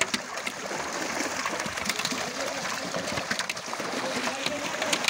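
Many fish crowded in a pulled net thrashing at the water's surface: a continuous churning splash dotted with many small sharp slaps.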